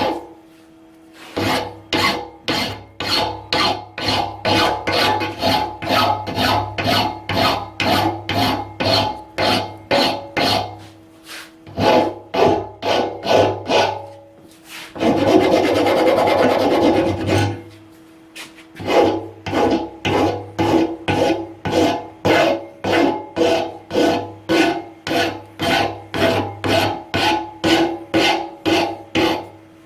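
Metal file rasping on a steel blanking plug for a motorcycle frame tube, in even strokes about two a second. About halfway through, a continuous rasping lasts roughly three seconds, and a steady low hum runs under the strokes.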